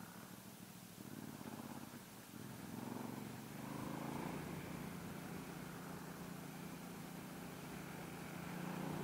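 Motorcycle engine heard from the rider's helmet camera, picking up revs about two and a half seconds in, then running at a steady pitch as the bike cruises.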